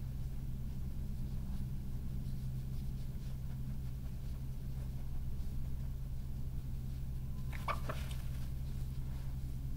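European badger giving one short, squeaky call late on, over a steady low hum.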